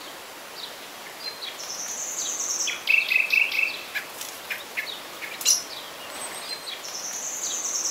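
Birdsong: a songbird singing a phrase of a high buzzy note followed by a lower rapid trill, twice, over a steady background hiss, with a few short clicks between the phrases.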